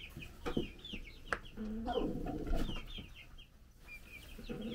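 Two-week-old chicks peeping in a brooder: many short, high, falling cheeps in quick succession. A lower drawn-out sound comes about two seconds in, along with a few light knocks.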